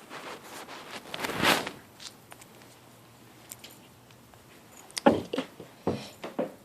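Plastic 2x2 Rubik's Cube being handled and turned, with a run of sharp clicks from the layers near the end and a loud rustle of handling noise about a second in.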